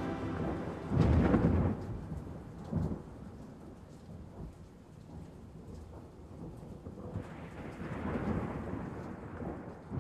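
Thunder rumbling over steady rain: a loud clap about a second in, a short one near three seconds, and a long rolling rumble swelling from about seven seconds, with another surge near the end.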